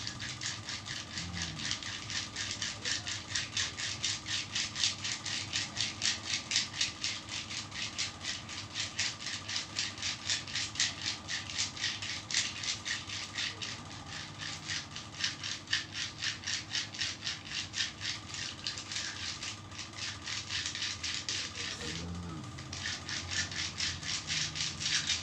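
Hands rubbing briskly up and down a bare calf in a traditional massage: a rhythmic swishing of palms on skin at about three strokes a second, pausing briefly twice near the end.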